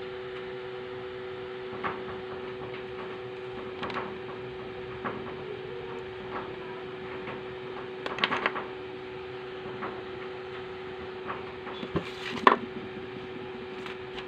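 Small clicks and knocks of things being handled on a workbench: cable plugs, multimeter test leads and a plastic courier bag. There is a cluster of taps about eight seconds in and a louder clatter with a crinkle about twelve seconds in, over a steady electrical hum.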